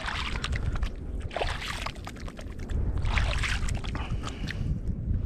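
Shallow bay water sloshing and splashing in three or four short surges around a wading angler, over a steady low wind rumble on the microphone.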